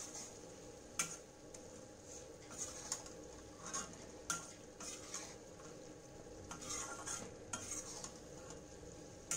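Steel ladle stirring mutton chops in thick masala in an iron kadai, scraping and knocking irregularly against the pan, with a faint sizzle of the masala cooking underneath.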